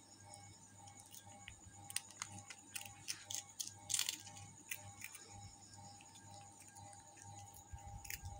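A cat crunching potato chips: irregular sharp crunches and crackles, the loudest about two and four seconds in and again near the end.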